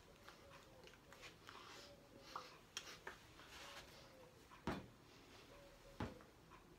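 Near silence: small-room tone with faint rustles and a few soft clicks, the sharpest two coming a little over a second apart near the end.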